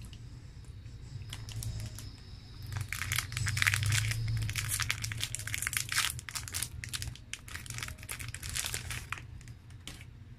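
The shiny plastic wrapper of a Fudgee Barr chocolate cake bar being torn open and crumpled by hand. A few light crackles come first, then dense crinkling from about three seconds in that eases off near the end.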